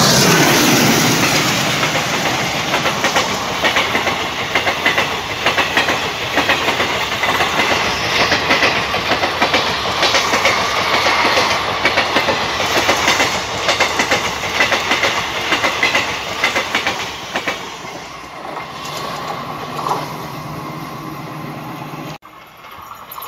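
A passenger train passes at speed. Its diesel locomotive goes by first, then a long rake of coaches clatters past, their wheels clacking rapidly over the rail joints. The clatter fades away near the end, and the sound then cuts abruptly to a much quieter background.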